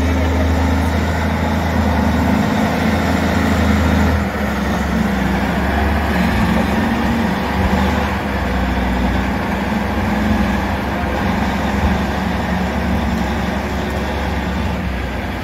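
Caterpillar wheel loader's diesel engine running close by, a deep steady note that shifts a little a few times.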